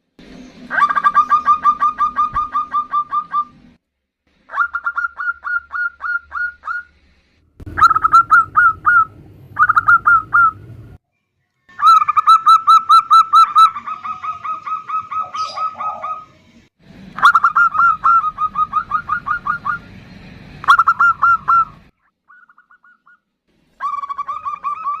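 Female zebra dove giving its rapid staccato "nutut" call: bursts of quick, clipped, evenly spaced notes, each burst lasting one to three seconds, repeated over and over with short gaps. A low hum sits under some of the bursts.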